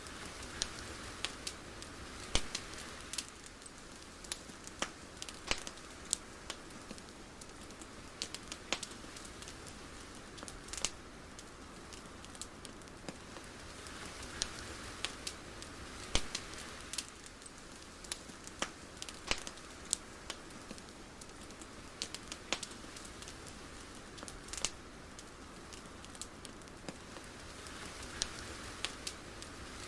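Irregular crackles and pops, several a second, over a soft hiss that slowly swells and fades.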